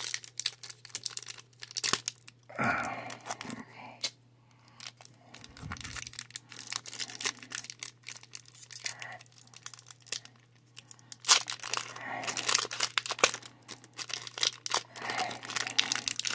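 Foil wrapper of a Pokémon TCG booster pack crinkling and tearing as it is pulled open by hand. The crackling grows denser and louder for the last few seconds, as the top of the pack is torn.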